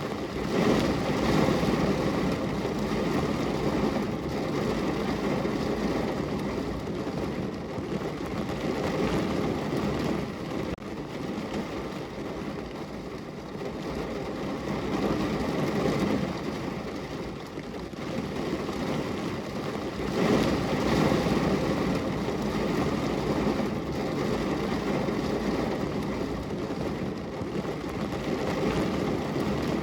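Rain falling on a car window, heard from inside the car: a steady rush of rain that swells louder every several seconds, most strongly just after the start and around two-thirds of the way through.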